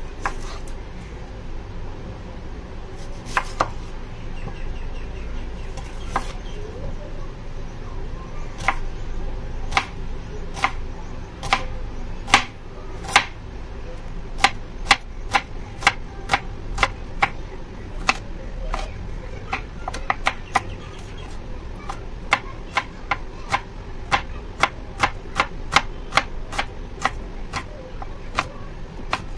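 Chef's knife slicing a small red onion on a wooden cutting board: sharp taps of the blade meeting the board, a few scattered at first, then a steady run of about one to two cuts a second.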